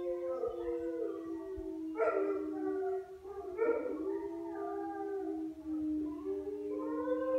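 Several kennelled dogs howling together in a chorus, long held notes at different pitches overlapping and sliding. A louder, harsher cry cuts in about two seconds in.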